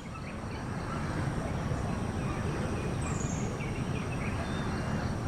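Scattered short chirps of a bulbul, including one high down-slurred note about three seconds in, over a louder steady low rumble of background noise.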